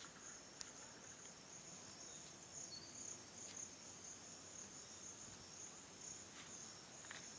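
Steady high-pitched chirring of insects in the grass and trees, pulsing softly without a break, with a few faint clicks.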